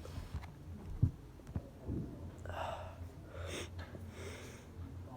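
A man breathing and sniffing after a sneeze: three short breathy rushes in the second half, with a sharp knock about a second in.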